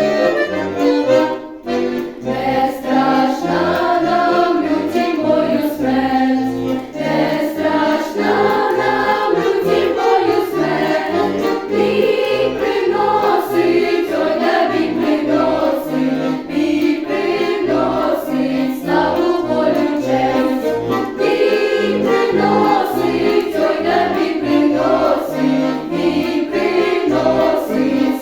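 School choir singing a Ukrainian folk-style song in unison over an accordion accompaniment with a steady stepping bass, with a short break about a second and a half in.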